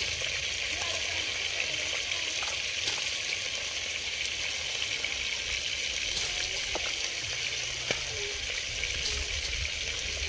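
Handfuls of wet, washed rice dropped into a pot of steaming liquid, with light splashes and drips of rinse water over a steady hiss.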